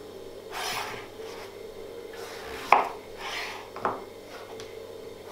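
Chef's knife slicing lengthwise through a courgette (zucchini) on a plastic cutting board: soft scraping strokes of the blade through the flesh and skin, with two sharp taps as the blade meets the board.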